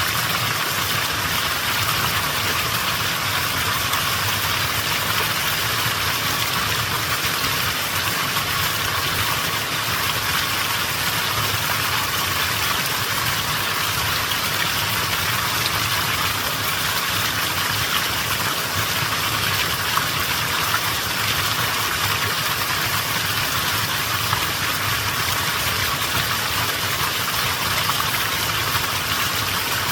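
Mountain stream flowing in a steady, unbroken wash of water noise.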